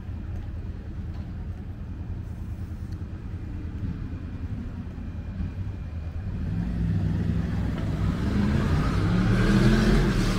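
Motor vehicle approaching on a city street. A steady low traffic hum gives way, from about six seconds in, to engine and tyre noise that grows louder toward the end.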